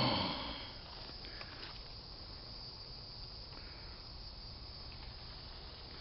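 Faint, steady outdoor background noise on a woodland trail, with no distinct events. It opens with a short low voiced sound from a man that fades within the first half second.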